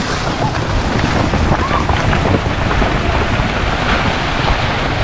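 Wind buffeting an outdoor microphone: a steady rush of noise with a strong low rumble.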